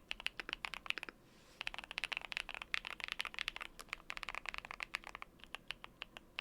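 Typing on a QwertyKeys QK60 mechanical keyboard with lubed Dangkeebs Strawberry Milk tactile switches and Cherry-profile keycaps: fast runs of keystrokes, pausing briefly about a second in and again near four seconds, slowing to a few single keys near the end.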